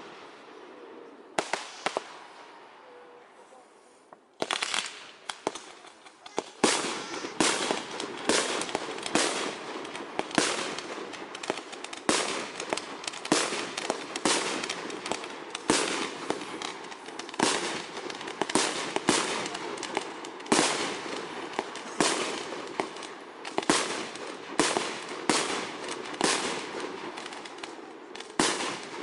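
Aerial fireworks shells bursting: a couple of separate bangs at the start, then from about four seconds in a continuous run of bangs, about two a second.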